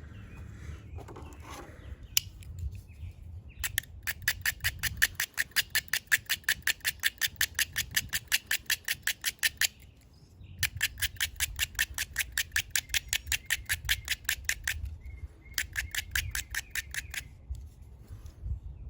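Wood rasping under quick, even back-and-forth strokes, about four or five a second, in three runs: a long one, a shorter one, and a brief one near the end.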